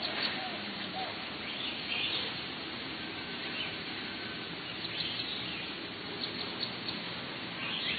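Outdoor ambience: birds chirping now and then, in short high calls, over a steady background hiss.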